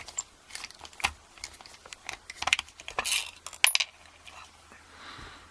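Scattered small metallic clicks and clinks as a Master Lock No. 27 laminated padlock is taken apart, its imperial Allen bolt undone with an Allen key. The clicks come irregularly, a few louder clusters among faint ones.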